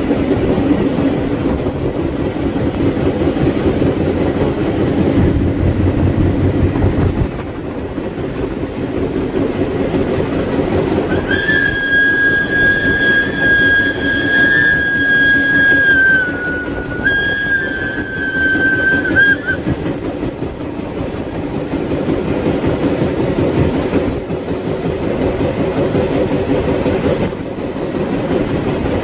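Train running on rails, with the rumble and clickety-clack of wheels over the track. About eleven seconds in, a high steady squeal with overtones starts and lasts about eight seconds, with a brief break near the middle.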